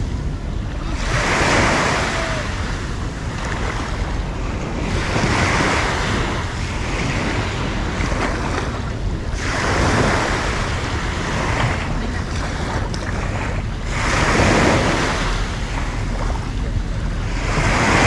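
Small sea waves breaking and washing up onto a sandy beach, the surf swelling and fading about every four seconds, with a steady low rumble of wind on the microphone.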